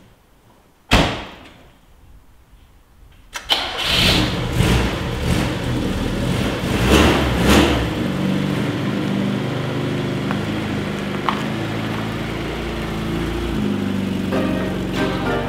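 A car door slams shut, then about two and a half seconds later the Fiat 125 S's twin-cam four-cylinder engine is cranked and starts, revs a few times and settles into a steady idle.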